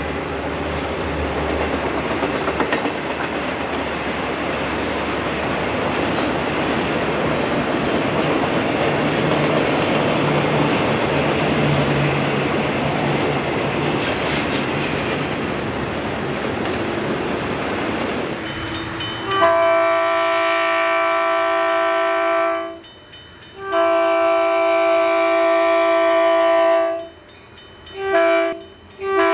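A double-stack intermodal freight train rolling past with a steady rumble of wheels on rail. After a cut, a Burlington Northern diesel locomotive sounds its multi-chime air horn: two long blasts, one short, then another blast begins, the grade-crossing warning pattern.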